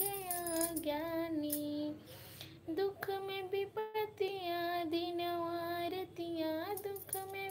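A woman singing solo, holding long wavering notes; she breaks off briefly about two seconds in, then sings on.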